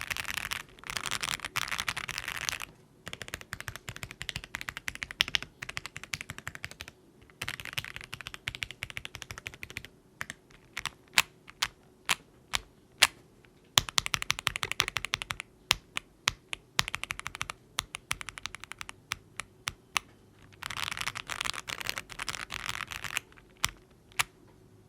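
Typing on an MWStudio MW65 Lite gasket-mount 65% mechanical keyboard with Akko Jelly Black linear switches and PBT keycaps: fast runs of keystrokes alternating with slower, separate key presses, some of them sharper and louder.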